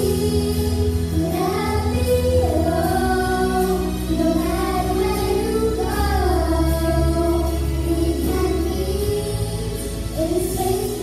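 A group of young girls singing a song together into microphones, over instrumental accompaniment with low held notes that change every few seconds.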